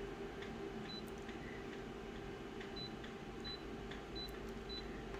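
Short high key-press beeps from a photocopier's touchscreen control panel as number keys are tapped, about half a dozen at irregular intervals, over a steady low hum.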